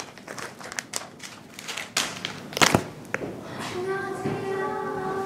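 Rustling and handling noise with a few sharp knocks, the loudest about two and a half seconds in. Then a woman calls out a long, drawn-out "hellooo" greeting, holding one steady note for over a second.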